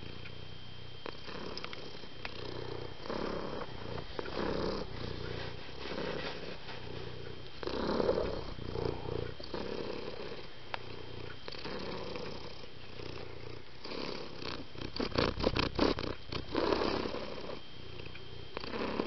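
Domestic cat purring, the rumble swelling and easing with each breath. About three quarters of the way through there is a quick run of sharp clicks.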